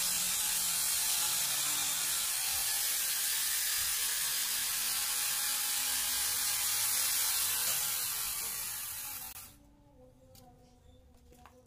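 Electric angle grinder fitted with a chainsaw converter bar and chain, running at full speed with a steady high whir. About eight seconds in it winds down, and it stops by about nine and a half seconds.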